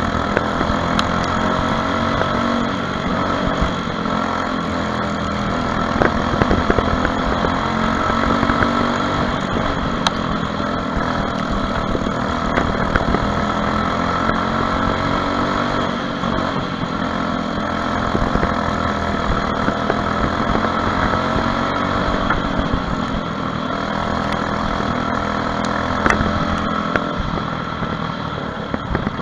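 Onboard sound of a Briggs & Stratton LO 206 four-stroke kart engine running at racing speed. Its pitch repeatedly rises and falls as the kart accelerates and backs off around the oval.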